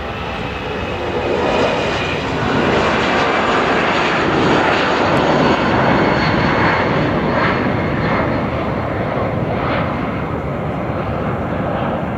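Four CFM56 turbofans of an Airbus A340-300 at takeoff thrust as the airliner lifts off and climbs away. It is a loud, rushing jet noise that swells over the first couple of seconds and then slowly eases as the aircraft climbs.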